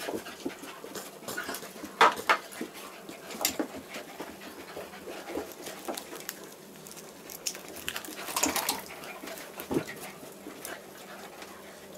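A labradoodle and a basset hound wrestling: panting and scuffling, with irregular short sharp dog noises, the loudest about two seconds in and another cluster near the two-thirds mark.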